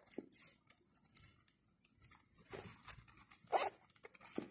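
Soft rustling as small objects are handled, with a few short crackles a little after halfway and again about a second later.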